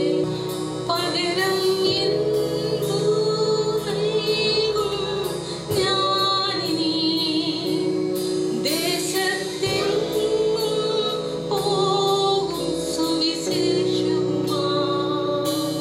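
Worship music: a woman singing a gospel song over instrumental accompaniment with a steady percussive beat.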